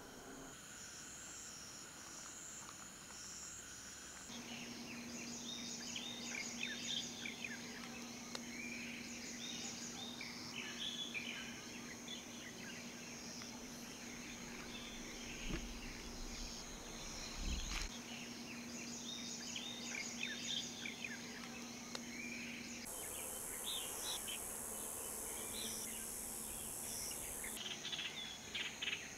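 Outdoor ambience of birds chirping and insects singing, in a string of short takes that change abruptly. A steady low hum runs under most of it, and a high steady hiss stands out for a few seconds near the end.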